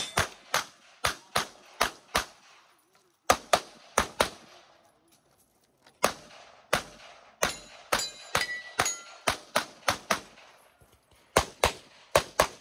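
Glock 26L 9mm pistol fired rapidly at close range, the shots mostly in quick pairs a fraction of a second apart. The string breaks off twice for a second or so before the shooting resumes.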